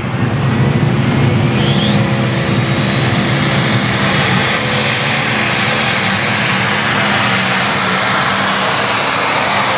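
Turbocharged 640-cubic-inch diesel engine of a 9,500 lb Limited Pro Stock pulling tractor running flat out under load as it drags the weight-transfer sled down the track. A thin high whistle rises about two seconds in.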